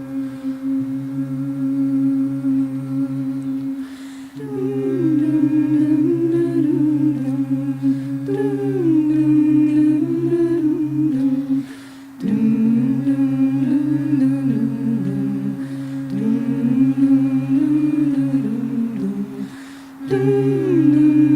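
A cappella group singing a Hindi song: voices hum a steady low drone while a lead voice sings a wavering melody above it. The drone drops out briefly between phrases, about 4, 12 and 20 seconds in.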